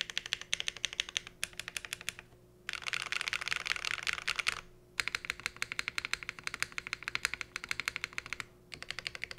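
Fast typing on a Cycle 8 custom mechanical keyboard built with HMX Ice Cendol switches and GMK Lime keycaps on a polycarbonate plate, no foams, in a split O-ring mount. Rapid runs of keystrokes with brief pauses between them, the densest run about three to four and a half seconds in.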